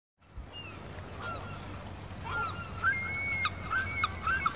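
Birds calling: a string of short calls that bend up and down in pitch, coming thicker in the second half, with one held high tone about three seconds in, over a low steady hum.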